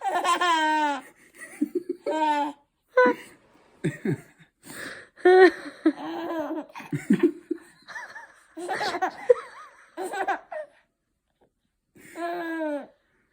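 People laughing and giggling in repeated bursts, with a short lull shortly before the end.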